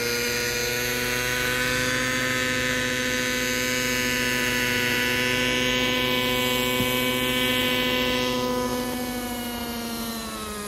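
Kyosho Concept 30 SR-X RC helicopter's two-stroke glow engine and rotor running steadily as it hovers low and descends to land; near the end the engine note falls in pitch and gets quieter as the helicopter settles onto the ground.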